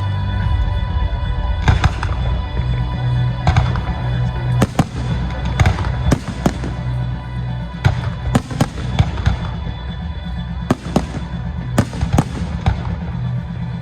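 Fireworks bursting in about twenty sharp, irregular bangs, several in quick clusters, over loud music with a heavy bass line.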